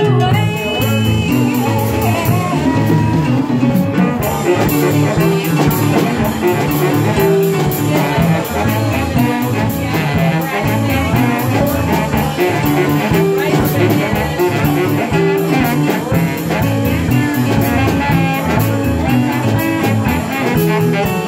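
Live band playing an instrumental passage: saxophone lead over keyboard, bass guitar, drums and percussion, with a busy steady beat.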